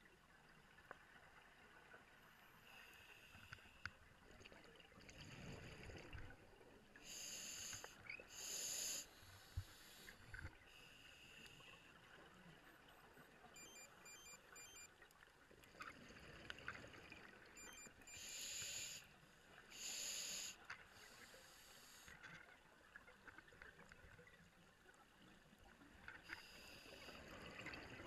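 Scuba regulator breathing heard underwater. Faint hisses of inhaling alternate with louder, second-long bursts of exhaled bubbles, coming in pairs and repeating about every ten seconds.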